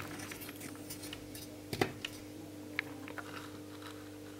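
Faint steady electrical hum with a few light clicks; the loudest is a short knock about two seconds in.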